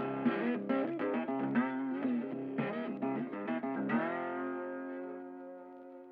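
Background guitar music: a plucked guitar line with bending notes, ending about four seconds in on a held chord that rings and fades away.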